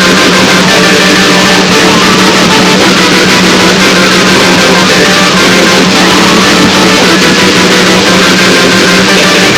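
Harsh noise music: a loud, dense, heavily distorted wall of noise that runs unbroken, with a steady low drone beneath it.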